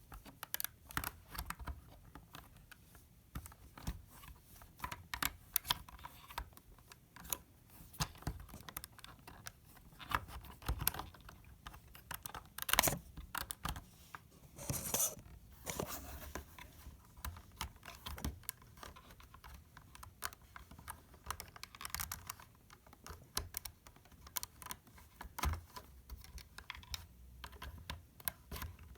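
Plastic LEGO pieces clicking and clacking irregularly as a LEGO puzzle box is handled, its parts pushed and twisted. A few clicks near the middle are louder.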